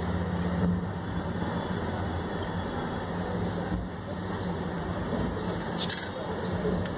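Steady low hum and hiss, with a few faint clicks about six seconds in.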